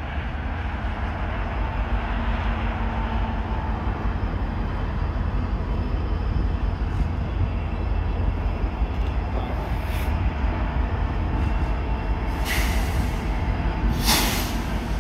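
Two BNSF diesel freight locomotives approaching at the head of a freight train: a steady deep engine rumble growing a little louder, with two short bursts of hiss near the end.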